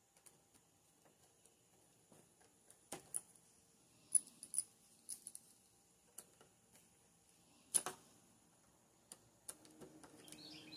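Faint, scattered metallic clicks and clinks of a screwdriver and loosened door knob hardware being handled, a few sharp taps with a short ring among them.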